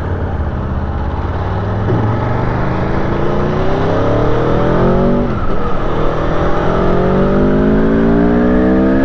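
Aprilia Tuono V4 Factory's V4 engine accelerating under load, its pitch climbing steadily. About five seconds in, an upshift drops the revs sharply, and then it climbs again.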